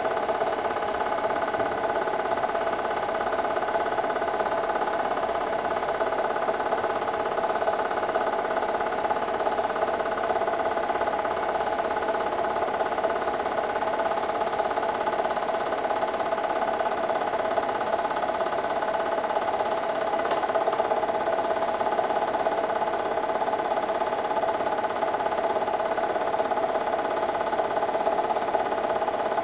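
8mm film projector running, a steady mechanical whir with a constant hum.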